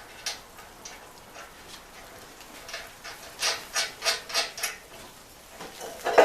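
Hand work on steel sawmill parts: a run of five or six short scraping strokes, about three a second, a little past halfway, then a sharp metal clank near the end.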